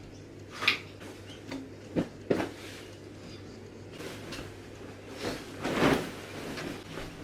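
A few short knocks and clunks of things being handled, like cupboard doors or drawers, with a longer, louder noise about five to six seconds in.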